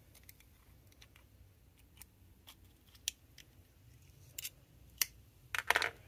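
Small scattered clicks and scrapes of a metal pick working dirt out of the channels of a vintage Victorinox Swiss Army knife, then a few sharp metallic snaps near the end as the knife's tools are worked, the loudest just before the end.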